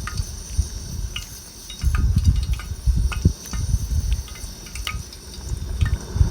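Steady insect chirring in the background, with irregular low thuds and knocks of handling on top that are the loudest sound.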